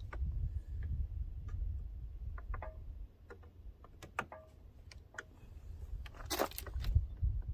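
Scattered small clicks and ticks of plastic trim and hand tools as a pickup's interior door panel is pried at and worked loose, with a short scraping rustle about six seconds in.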